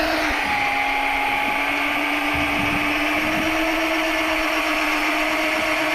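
A motor running steadily, a constant hum with a higher whine over a wide hiss.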